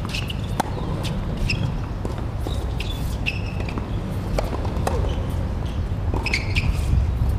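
Tennis rally on an outdoor hard court: sharp pops of racket strikes and ball bounces every second or so, with short squeaks of sneakers on the court, over a steady low rumble.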